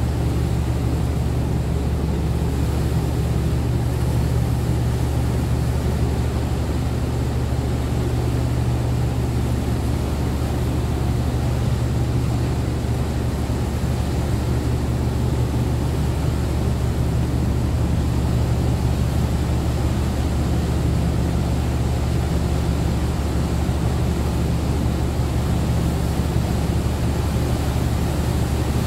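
Sakurajima car ferry's engines and propellers running in a steady low drone while the ship manoeuvres into its berth, churning the water under the bow.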